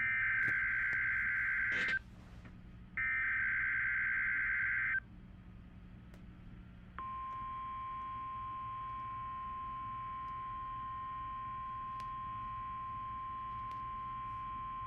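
NOAA Weather Radio alert: two harsh, buzzy SAME digital header bursts with a short gap between them, then, about seven seconds in, the long steady single-pitch 1050 Hz weather-radio warning alarm tone begins.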